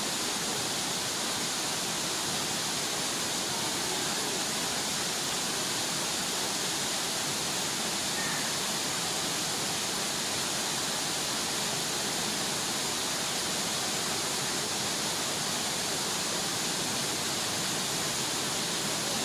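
Small waterfall splashing down onto rocks: a steady, unbroken rush of falling water.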